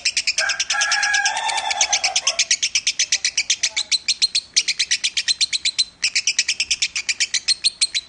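Lovebird singing a long chattering trill of rapid high chirps, about nine a second, with two short breaks after the middle. A lower drawn-out tone sounds under the trill for the first two seconds or so.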